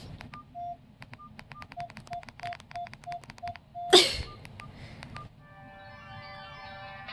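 Nokia 108 keypad clicking as its buttons are pressed in quick succession, many presses sounding a short beep at one of two pitches. About 4 s in there is a single loud thump. About a second later a MIDI ringtone from the Samsung SGH X450 starts playing through the phone's small speaker.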